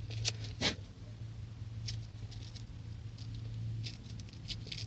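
Light, irregular scratching and scraping strokes as a horn-button contact is scrubbed clean, a few short strokes at a time with small pauses, over a steady low hum.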